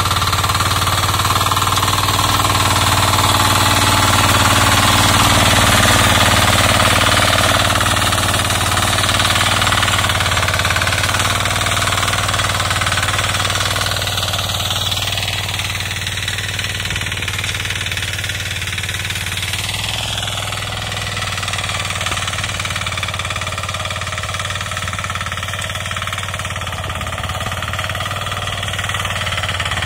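Kisan Kraft KK-IC 400D power weeder's 9 hp diesel engine running steadily under load as its tines work the soil between cotton rows.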